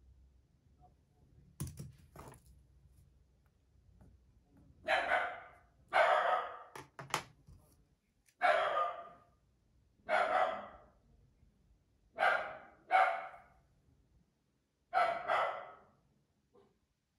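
A dog barking, about eight barks in singles and pairs, starting about five seconds in. A few sharp clicks come shortly before the barking.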